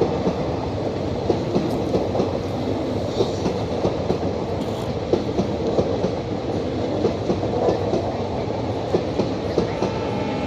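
Passenger train running on the rails, a steady rumble with the wheels clacking over rail joints in a quick, uneven string of clicks.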